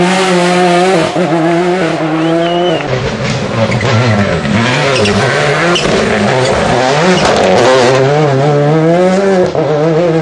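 Škoda Octavia WRC rally car's turbocharged four-cylinder engine at full attack, its pitch climbing and dropping again and again through gear changes and lifts for a corner, with tyre noise on the loose surface.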